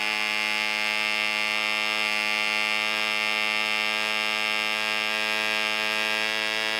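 Red Fin .049 model diesel engine, a miniature two-stroke, running steadily with its propeller turning. It makes an even, unwavering buzz at constant speed.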